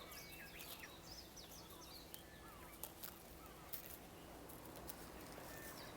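Faint birdsong: many short chirps and quick whistled glides from small birds, over a low steady hiss, with a few faint ticks in the middle.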